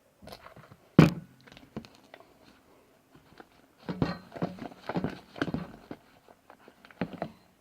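Spatula mixing slime in a bowl: one sharp knock about a second in, then from about four seconds on a quick, irregular run of squishing and tapping strokes.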